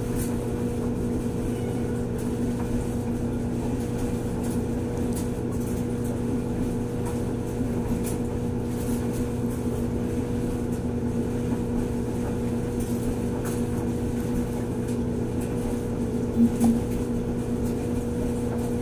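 Steady machine hum at a constant pitch, with a short louder sound near the end.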